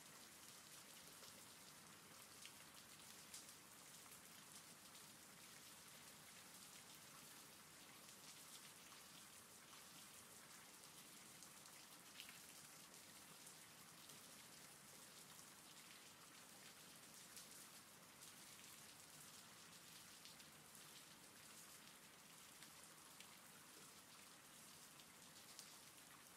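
Faint, steady rain: an even hiss of falling rain with scattered, slightly louder taps of single drops.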